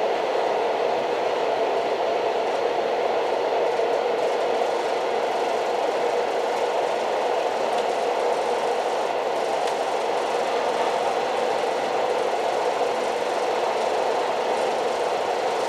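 Old train running steadily, a constant rumble with no break or change in level.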